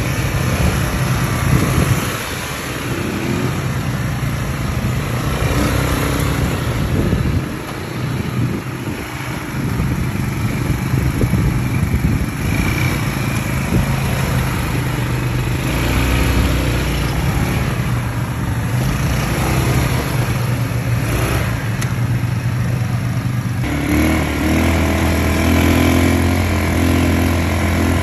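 ATV engine running, its pitch shifting up and down with the throttle; near the end it settles to a steadier, lower note.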